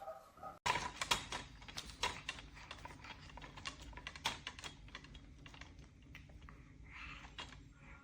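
A run of irregular sharp clicks and taps, several a second, over a low steady hum. It is cut in about half a second in, after a brief moment of steady bird-like tones.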